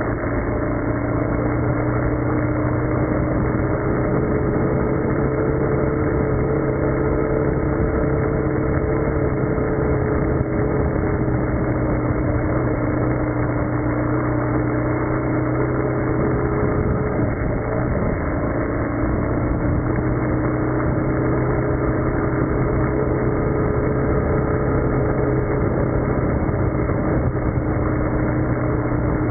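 Steady roar of a tumbling mountain waterfall, a loud constant rush of falling water swollen with snowmelt.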